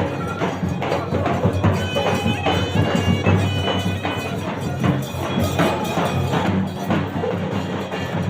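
Shehnai and dhol playing live devotional music: the dhol beats a steady rhythm while the shehnai plays a reedy melody with some held high notes in the middle.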